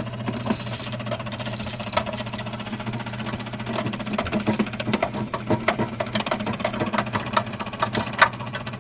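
Bosch refrigerator's damper control motor running with a steady hum and irregular rattling, a noise that marks the motor as about to fail. A few sharper clicks from screws being undone.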